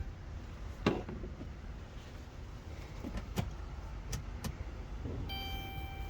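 Sharp clicks of an ignition key being turned off, pulled out and the next key pushed into a 2013 Dodge Caravan's ignition, then the dashboard's steady electronic chime tone starting about five seconds in.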